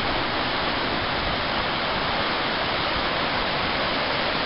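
A shallow river rushing over rocky rapids and a low waterfall: a steady, even roar of water.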